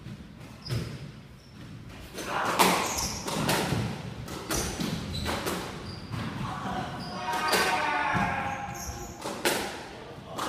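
Squash rally: the rubber ball cracks off rackets and the court walls in sharp hits about once a second, echoing in the enclosed court. The hits start about two seconds in.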